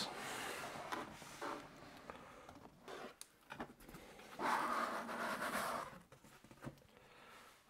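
Cardboard box being opened by hand: the flap and lid rub and slide against the box, with a few light taps. The loudest part is a longer rubbing slide of cardboard lasting about a second and a half, starting about four and a half seconds in.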